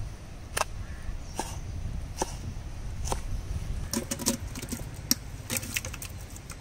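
Raw fish chunks being tipped from a steel bowl into a large metal pot: scattered knocks, then a quick run of soft thuds and clatter about four seconds in as the pieces land. A steady low rumble runs underneath.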